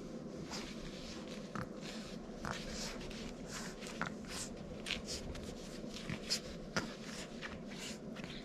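Puppies shuffling and scratching about on their bedding: scattered short scratches and rustles, a few sharper ones past the middle, over a steady low hum.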